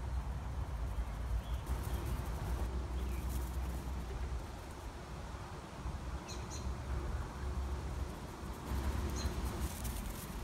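Outdoor ambience with wind noise on the microphone and a few faint, short bird chirps, two of them about six and nine seconds in.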